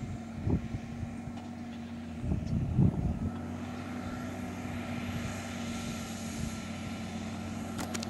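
Massey Ferguson 6480 tractor's six-cylinder diesel running steadily under plough load, a distant even drone. Low wind rumbles on the microphone swell about half a second in and again between two and three seconds in.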